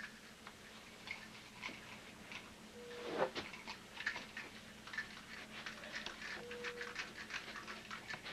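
Faint, irregular clicks and soft rustles, a little louder about three seconds in, over a faint steady low hum.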